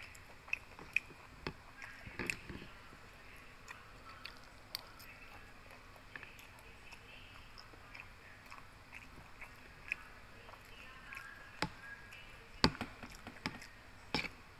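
Mouth sounds of someone chewing and biting food, with sharp clicks of a metal fork and spoon tapping and scraping a plastic food container. The loudest click comes about twelve and a half seconds in.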